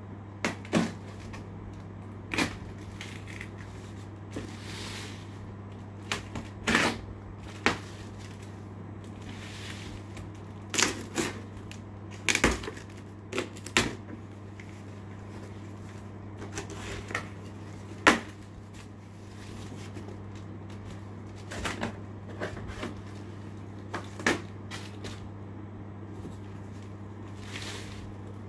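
Cardboard packaging being handled and opened: irregular clicks, knocks and short rustles, over a steady low hum.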